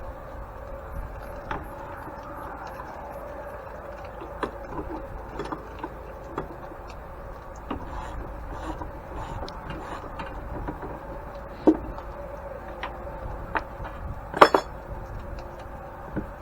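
Scattered clinks and knocks of hand tools and metal parts being handled while an antique grain mill is taken apart, with two louder knocks near the end over a steady faint hum.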